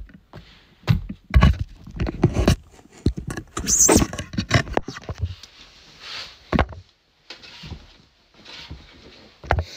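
Handling noise from a smartphone being carried and set up: a run of knocks and thumps over the first five seconds, then softer rustling of clothing and a padded chair as someone settles into it, with one more knock near the end.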